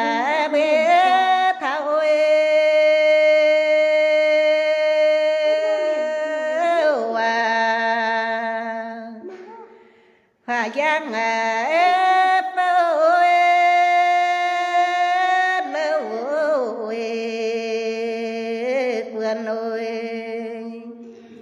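A woman singing a Red Dao folk song (hát lượn) solo, in slow phrases of long, drawn-out held notes. The first phrase fades out about halfway through and a second begins straight after, fading out near the end.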